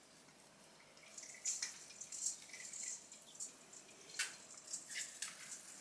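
Faint rustling and a few light clicks from a decoration and artificial Christmas tree branches being handled. It starts about a second in, with sharper clicks near the end.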